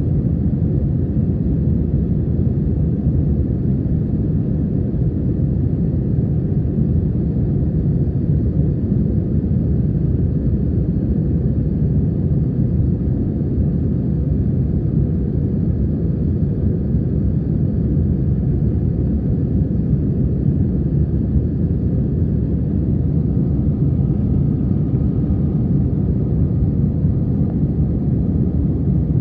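Jet airliner cabin noise in flight: a steady, low rumble of engines and rushing air, heard from inside the cabin.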